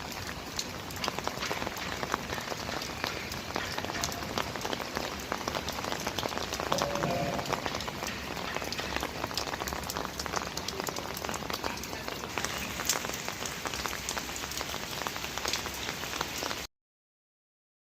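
Heavy rain falling, with a steady hiss and a dense stream of individual drop hits on a surface. It cuts off suddenly near the end.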